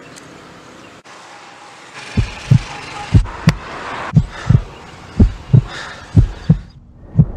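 Heartbeat sound effect: paired lub-dub thumps about once a second, starting about two seconds in, over a steady hiss.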